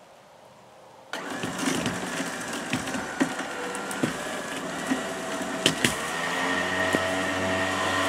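Truck-mounted electric winch starting suddenly about a second in and running steadily under load as it drags a sapling out of the ground by its roots, with a few sharp cracks in the middle.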